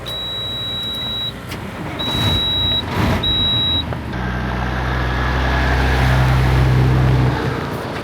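Truck backup alarm sounding three steady high beeps, with two short hisses of air, then the truck's engine running up loudly for about three seconds, rising a little in pitch before it drops back.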